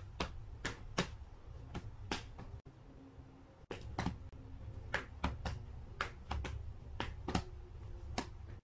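A series of sharp, irregular clicks, two or three a second, over a faint low rumble, pausing for about a second in the middle.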